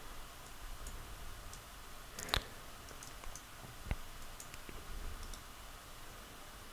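Faint, scattered clicks of a computer mouse and keyboard, a few separate clicks with the sharpest about two and a half seconds in and another near four seconds.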